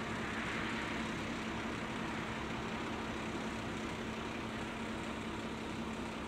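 Heavy-equipment engine running steadily under no change of load, with a steady hum.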